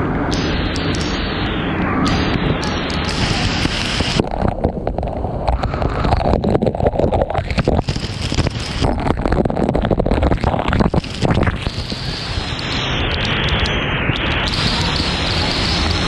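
Waterfall pouring down at close range, a loud, steady rush of water. From about four seconds in to about twelve, falling water strikes the camera directly, adding a harsh, uneven crackling spatter.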